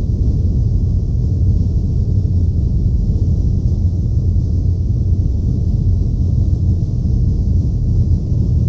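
Drone noise music: a loud, steady low rumble with a faint hiss above it, unchanging throughout.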